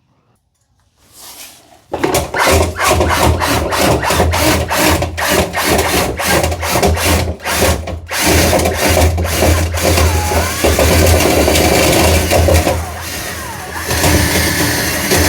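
Drill spinning a telescoping dryer-vent cleaning brush inside the vent duct, starting about two seconds in. At first it comes as a rapid series of knocks, then runs more steadily, easing off briefly near the end.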